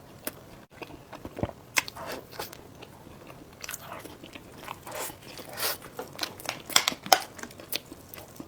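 Close-miked biting and chewing of a soft scallion bread roll with a sauce filling: irregular wet mouth clicks and smacks, with a few louder bites near the end.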